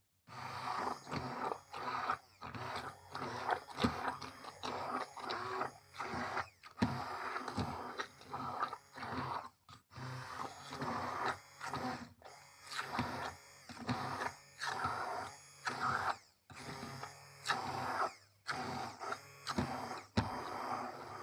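Handheld immersion blender running in a pot of cooked pumpkin and potato, churning the chunks into a purée. The motor starts up at once and keeps cutting out for a moment, about every two seconds.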